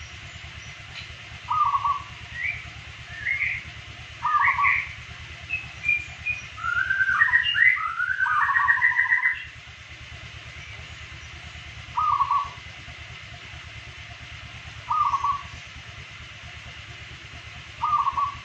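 Zebra dove (perkutut) calling. Short coos come about every three seconds, and a longer, louder run of rolling, gliding notes comes about seven to nine seconds in. A few higher chirps sound early on, over a low steady hum.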